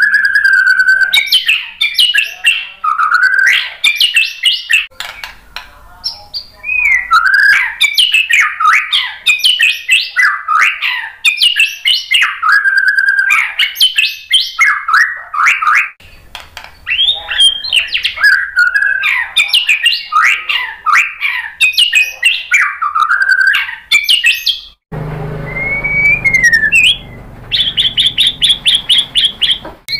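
White-rumped shama singing: a fast, varied stream of loud whistled phrases and chattering notes. Near the end a low hum comes in under a slurred whistle, followed by a fast run of identical high notes.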